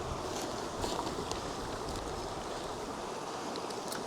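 Steady rushing of river water, with a few faint clicks as items are handled in a backpack.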